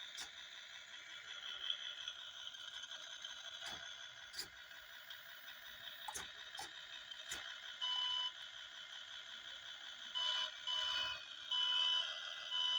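An ESP32 sound module in a model wheel loader plays a simulated diesel engine running steadily through a small speaker, thin and without bass, with a few sharp clicks. From about eight seconds in, a simulated reversing alarm beeps several times.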